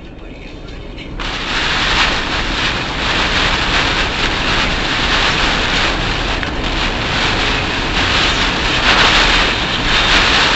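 Dense rain and wind noise with tyre hiss from a car driving fast on a rain-soaked expressway in a typhoon, picked up by a dashcam. It swells up sharply about a second in, with louder gusts of noise now and then.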